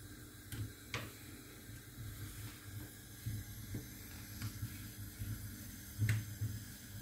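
Lavash flatbread cooking in a dry frying pan over a gas burner: a faint, steady low rumble with a light hiss and a few soft clicks, the loudest about six seconds in.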